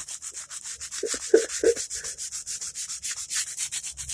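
Hand sanding on the steel side of a Hi-Point C9 pistol's slide: quick, even back-and-forth scratching strokes as the outer finish is worn off toward bare metal.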